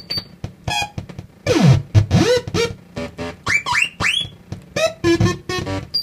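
Homemade noise box with photo-theremin oscillators and LFOs, producing choppy electronic bleeps and stuttering pulses. About one and a half seconds in the pitch swoops down and back up, and quick rising chirps follow around four seconds in.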